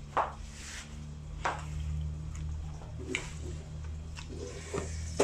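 Soft, wet eating sounds of a fried snoek head being eaten with the fingers: a few brief squishy sounds, roughly a second and a half apart, over a steady low hum.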